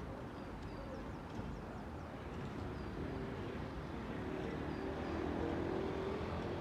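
A vehicle engine growing louder as it approaches, a wavering hum over a steady rumble, with a few faint high bird chirps in the first half.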